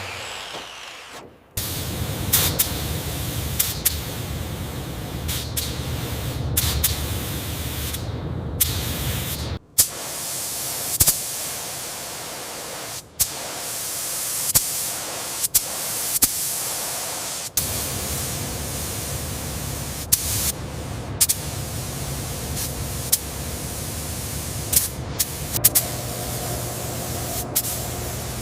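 Steady hissing, cut off and restarted several times, with sharp clicks and knocks between stretches and a low hum under parts of it.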